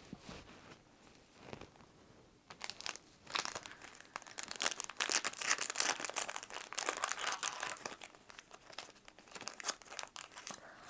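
Booster pack wrapper crinkling and being torn open by hand, starting about two and a half seconds in after a few faint handling clicks.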